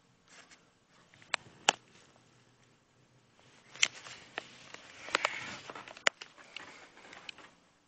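Handling noise: a few sharp clicks and taps over soft rustling as the camera or toys are moved about.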